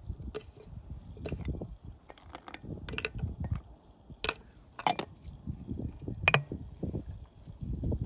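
Glass clinking and tapping as pieces of lemon and orange fruit are dropped into a glass teapot and glass containers are handled: several sharp separate clinks, the loudest a little after six seconds in, over a low rumble.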